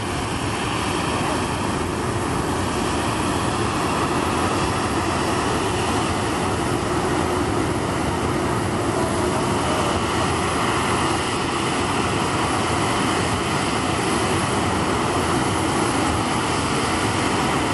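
McDonnell Douglas MD-83 airliner's two rear-mounted Pratt & Whitney JT8D turbofans at takeoff thrust through the takeoff roll and climb-out. The jet noise is steady and dense, growing a little louder over the first few seconds and then holding.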